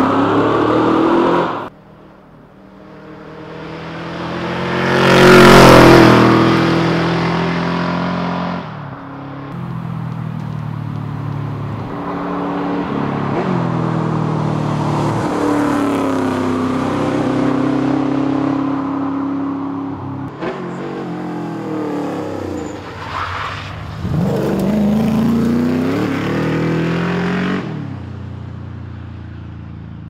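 Holden VH Commodore SS Group 3 rally car's V8 engine driven hard in several separate clips: revving up and changing gear as it approaches, passing close by with the loudest peak about five seconds in, and pulling away. The clips change abruptly a few times, and the last one fades as the car drives off.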